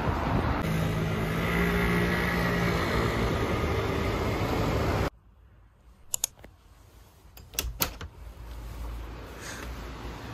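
Street traffic noise with a steady low engine tone for about two seconds; a little after the middle it cuts to a quiet room, where a few sharp clicks follow from a window latch and casement window being opened.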